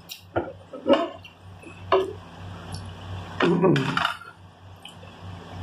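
Short clicks and smacks of eating: fingers being licked and picking at crumbs on a ceramic plate, with a louder clatter of the plate handled against the table about three and a half seconds in.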